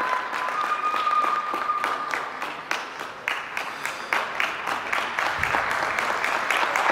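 Audience applauding: dense, steady clapping, a little louder near the end.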